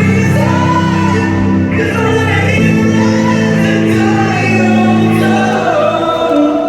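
Live rock band playing loud with singing over long held chords that change every second or two.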